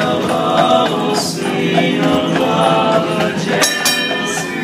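Barbershop quartet singing in close four-part harmony, with a horse's hooves clip-clopping underneath.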